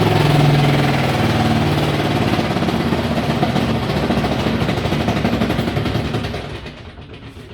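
Haier i-Pro Series 7 HW100-B14979S washing machine spinning at high speed with a loud, fast rhythmic rattling din, likened to a pneumatic drill, which the owner suspects is premature drum bearing failure. The noise dies away over the last second or so.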